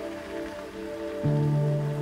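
Soft background music of sustained, held chords; a deeper held note comes in a little past halfway and the music swells.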